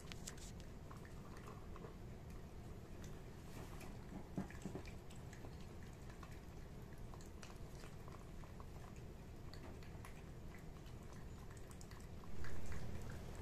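A cat eating, with soft chewing and scattered small clicks. A louder low thud or rustle comes near the end.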